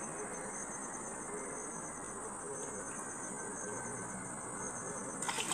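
Steady, high-pitched chirring of crickets or similar insects. A rush of splashing water begins near the end.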